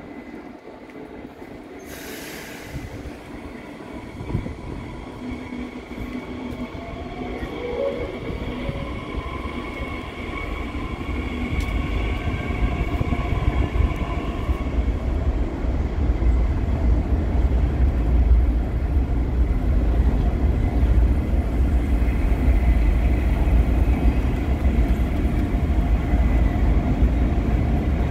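Train crossing a steel truss railway bridge, close by: thin squealing wheel tones over the first half, then a deep rumble that builds from about a third of the way in and stays loud.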